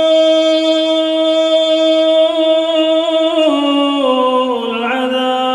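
Solo male Quran recitation with tajweed: the reciter draws out one long vowel on a single held note, then steps down through a few lower notes in the second half.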